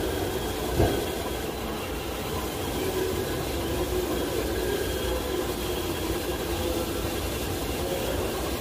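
Power sander running steadily with a constant whine, and a short knock about a second in.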